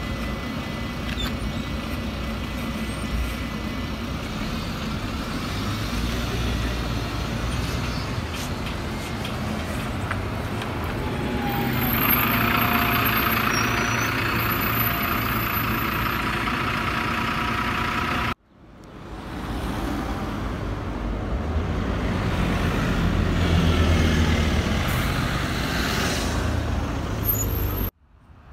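City bus engines: an articulated bus running at a stop, with a louder rushing noise for a few seconds around the middle. After a sudden cut, another bus's engine grows louder and fades as it drives past.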